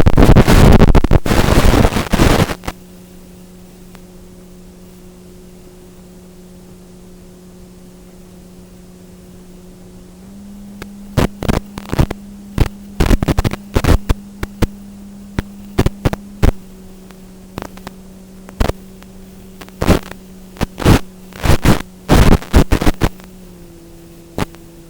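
Strong wind gusts buffeting the microphone in loud rumbling blasts, heavy for the first couple of seconds and then in short bursts through the second half. Beneath them a faint steady hum that steps up in pitch a little about ten seconds in and drops near the end.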